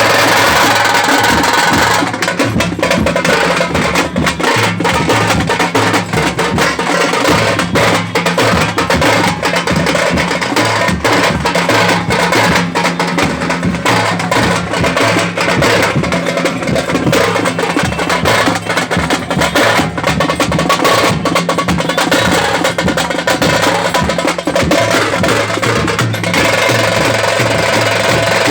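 Tamate folk frame drums beaten fast with sticks in a dense, continuous rhythm. The fast drumming starts about two seconds in and stops about two seconds before the end.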